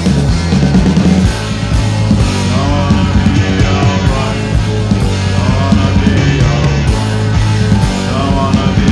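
Rock band recording playing, with a steady beat.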